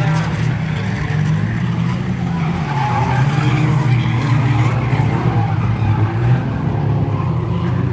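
Several 1600cc banger race cars with engines revving hard at once, a steady loud mass of engine noise with several pitches rising and falling against each other.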